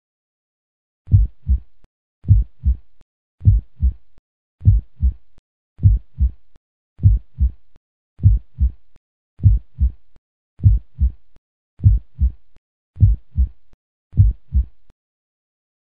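Heartbeat sound effect: twelve deep double thumps (lub-dub), one beat about every 1.2 seconds, steady in pace and level. It starts about a second in and stops about a second before the end.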